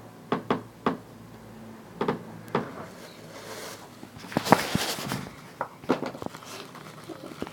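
Light taps and clicks of a smartphone being handled, with a short rustle about four and a half seconds in.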